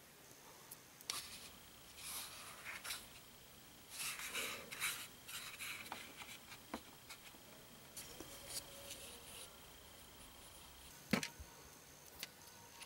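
Faint handling of a cardboard miniature hutch: scattered rustling and scraping of cardboard against cardboard and the cutting mat, with one sharp tap a little before the end.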